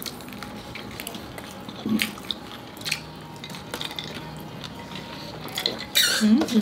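Cutlery lightly clinking on plates in scattered small clicks, with a brief murmur from a diner about two seconds in and again near the end.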